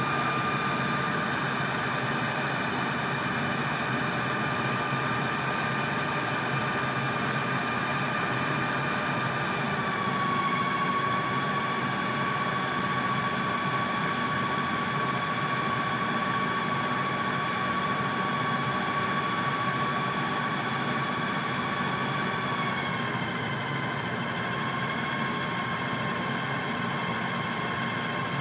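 A John Deere 6430 Premium tractor's ECU-remapped diesel engine running steadily at full load through the PTO on a dynamometer, making about 127 hp. A steady engine note carries a high whine that drops slightly in pitch twice, about ten seconds in and again near the end.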